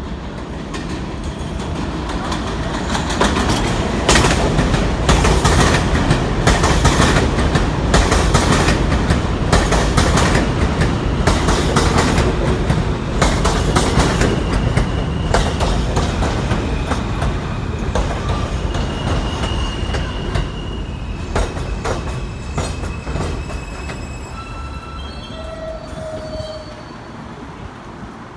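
R160A subway train pulling into an elevated station: a loud rumble of wheels clattering over rail joints, building over the first few seconds and then easing as the train slows. In the second half, short high squeals and tones come in as it brakes to a stop.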